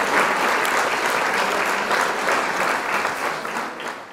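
Crowd applauding, a dense patter of many hands clapping that fades away near the end.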